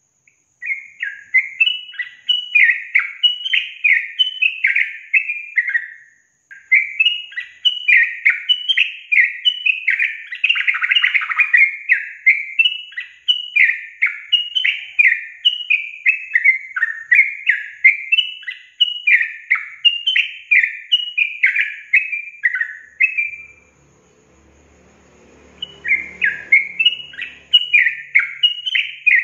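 Yellow-vented bulbul (trucukan) singing: loud, bubbly phrases of quick falling notes repeated over and over. The song breaks off for about two seconds near the end, then starts again.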